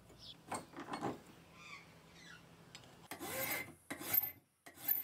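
Flat hand file scraping across a steel bolt held in a vise: about three strokes of about half a second each, starting about three seconds in, with short gaps as the file is lifted for the return, filing a flat side onto the bolt. Before the filing, faint squeaks of a marker pen drawing on the bolt.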